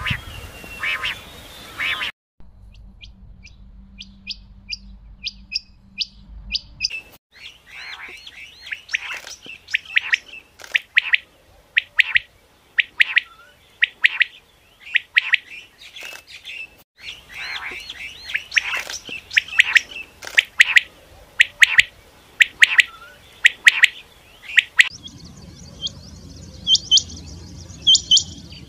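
Quails calling: first a quick run of short, high chirps, then a long series of sharp, repeated calls, and near the end higher, rapid calls over a low background hum.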